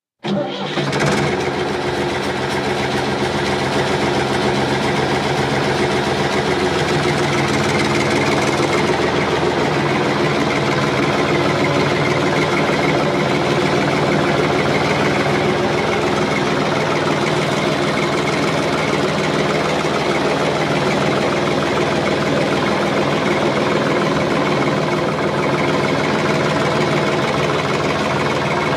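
A farm vehicle's engine running steadily at an even speed. It cuts in abruptly just after the start.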